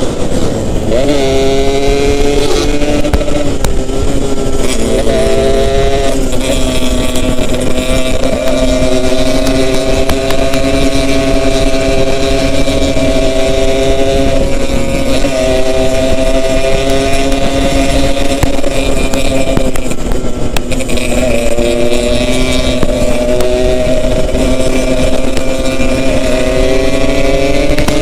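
Yamaha RX-King's two-stroke single-cylinder engine running under way. Its pitch drops sharply several times as the rider shifts gears, with long steady stretches of cruising between the shifts.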